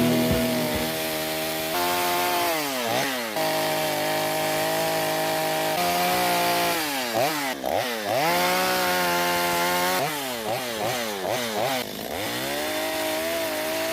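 Two-stroke chainsaw engine, just fitted with a new ignition coil, running at idle and being blipped on the throttle several times, the pitch dropping and climbing back with each blip. There is a quick run of about four blips near the end before it settles back to idle.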